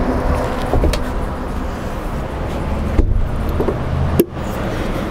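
Steady outdoor background rumble and hiss, with a few sharp clicks.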